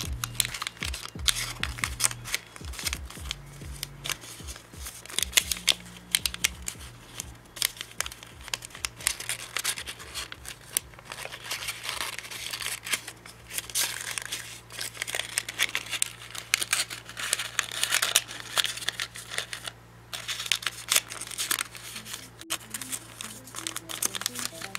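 Origami paper crinkling and rustling as it is folded, creased and tucked together by hand, a dense run of short crackles. Background music plays softly underneath.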